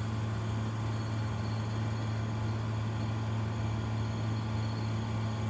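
Beckman Coulter Avanti refrigerated centrifuge humming steadily as its rotor starts spinning up from rest after being started.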